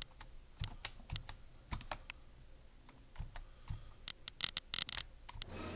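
Irregular light clicks of a computer keyboard and mouse being worked, spread through, with a quicker run of clicks about four to five seconds in.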